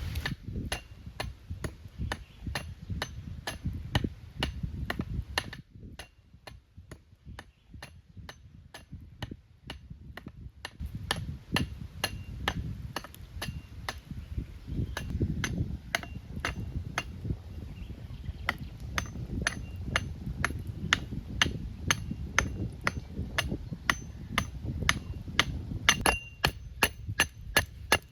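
Knife chopping on a cutting board: a long, steady run of sharp knocks about two to three a second, each with a slight metallic ring. The strokes thin out and go quieter for a few seconds, then pick up again.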